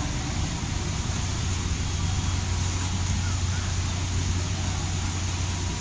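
Steady low drone of a large cruise ship passing close by, with an even hiss of outdoor noise over it.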